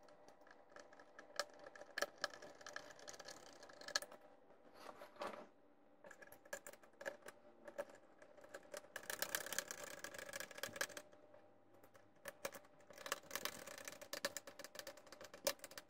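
Hand screwdriver turning screws into the sheet-metal motherboard cover of an all-in-one computer, sped up fivefold: quick clusters of small clicks and rattles, three bursts with short pauses between, over a faint steady hum.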